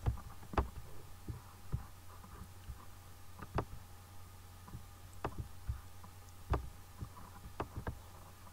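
Irregular soft clicks and light thumps, about a dozen spread unevenly, over a steady low electrical hum.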